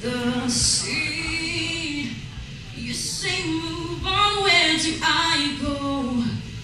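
A young woman singing a slow melody into a microphone, with held notes that slide between pitches, over quiet acoustic guitar accompaniment.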